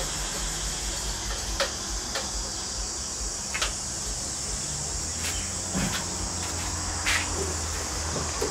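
Steady high-pitched chirring of insects over a low hum, broken by a handful of short, light clicks and knocks.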